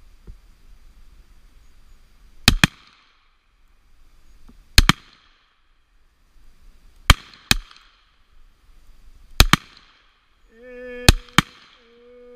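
Revolver fired in quick pairs of shots: five pairs about two seconds apart, each pair a fraction of a second between its two shots, every shot sharp with a short echo after it.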